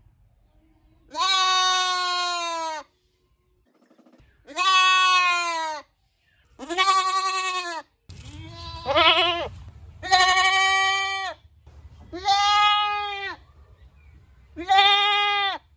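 Goat bleating: seven drawn-out bleats of a second or more each, with short pauses between. The one just past the middle wavers up and down in pitch.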